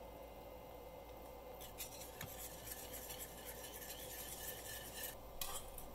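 Faint scratchy scraping and stirring of a utensil against a stainless-steel pan as liquid ingredients are mixed into a thickened coconut curry sauce. It starts about two seconds in, goes on in small scrapes and ticks, and stops shortly before the end.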